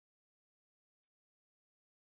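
Near silence: the soundtrack is empty except for one brief, faint, high-pitched click about a second in.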